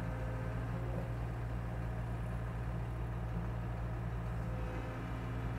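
Dump truck's diesel engine running steadily, a constant low drone.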